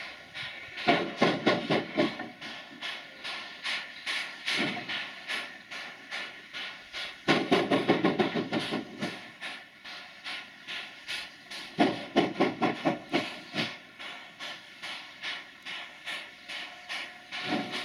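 JS class 2-8-2 steam locomotive struggling to get moving from a standstill: a steady run of chimney exhaust beats with steam hissing, broken by several louder spells of quick, hard beats every few seconds as the driver works the engine.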